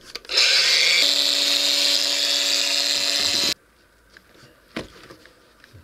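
Electric angle grinder with a cutting disc spinning up with a rising whine, then cutting into the floor with a loud, steady grinding noise that stops abruptly about three and a half seconds in. A few faint knocks follow.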